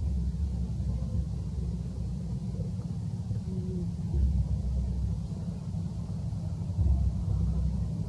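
A low, uneven rumble that swells and fades every few seconds.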